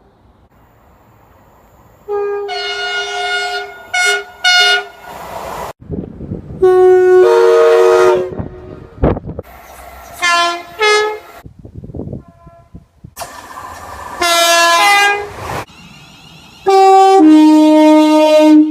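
Train horns sounding one after another, with quiet gaps between them. A long blast and two short toots come first. Later soundings are two-tone, stepping between a high and a low note, and the last one ends on the lower note.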